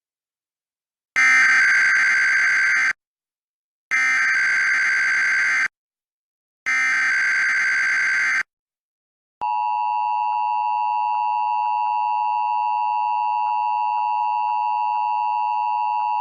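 Emergency Alert System SAME header for a Required Monthly Test: three harsh, screechy digital data bursts, each just under two seconds with short gaps between. About nine seconds in, the EAS attention signal starts: the steady two-tone alert at 853 and 960 Hz.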